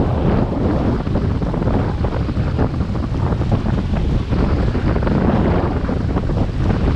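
Wind buffeting the microphone over the rush of water along the hull of a sailing yacht under way. The wind rumble is the loudest part and stays steady.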